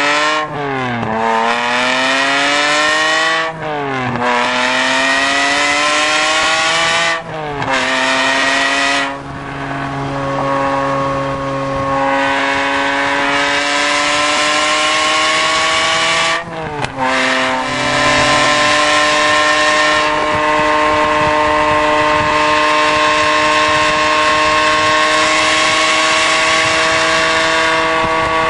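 Ferrari 550 Maranello's 5.5-litre V12 through a Larini exhaust, accelerating hard through three quick upshifts in the first eight seconds: each climb in pitch is cut by a short drop at the shift. It then cruises at steady revs, and about 17 seconds in a downshift leaves it holding higher, slowly rising revs.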